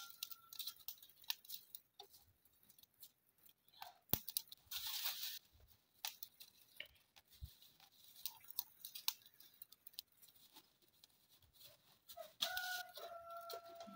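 Lumps of charcoal clicking as they are placed by hand into a small charcoal stove, with a plastic bag crinkling about five seconds in. Near the end a chicken gives one long call.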